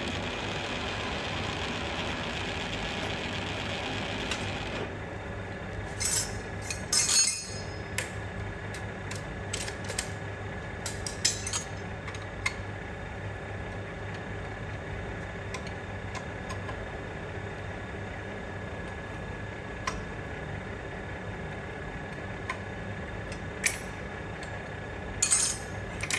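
Drill cutting a 20 mm hole through steel with a slot drill, its cutting noise stopping suddenly about five seconds in as the hole breaks through. A steady motor hum carries on, with scattered metallic clinks and taps through the rest.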